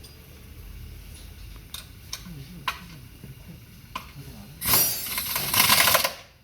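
Work sounds at a car repair shop: a few sharp clicks and knocks, then a loud, noisy, rattling burst lasting about a second and a half near the end.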